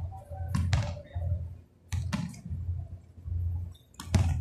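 Basketball being dribbled on the court: a run of dull thuds about every half second, with a sharper knock near the end.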